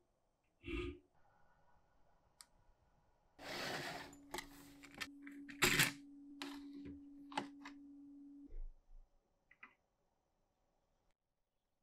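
A single stroke of a hand file across the steel threads of a monkey wrench's adjusting screw. Then a loud rush, a low steady hum and a run of sharp metallic clicks and clacks, loudest about halfway through, dying away to a few faint clicks.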